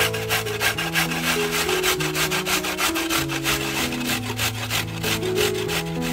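Raw carrot grated on a stainless-steel box grater: a run of quick, even rasping strokes, about four a second.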